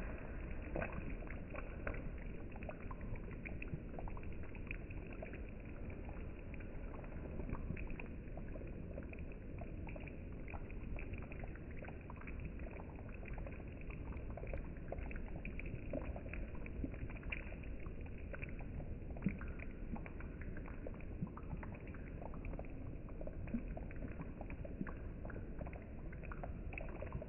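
Thick tamarind fish curry simmering in a pan, bubbling with many small irregular pops and plops over a steady low rumble.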